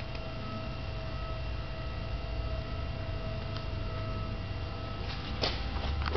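Electric profiling bed's actuator motor running as a button on its handset is held, a steady hum with a whine above it that fades out about four seconds in; a sharp click about five and a half seconds in.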